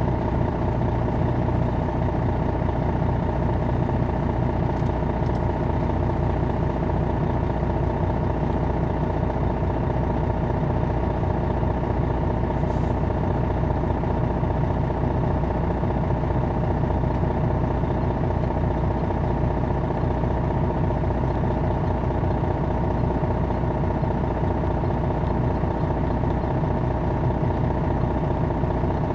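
Detroit Diesel Series 60 diesel engine of a 2001 MCI D4000 coach bus running with a steady drone that holds one pitch throughout.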